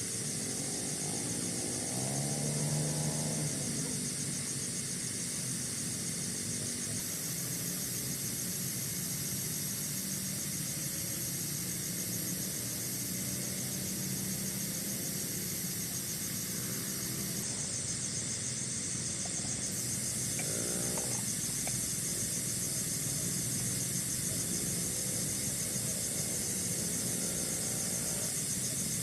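Steady chorus of forest insects, a high continuous trilling made of fast, even pulses.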